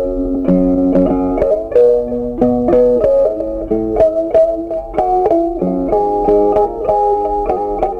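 Background music: a plucked-string melody of short notes, moving up and down in pitch over steady lower notes.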